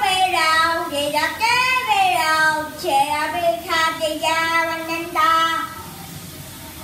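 A boy singing karaoke into a handheld microphone, gliding between notes and holding some of them; the singing stops a little under six seconds in.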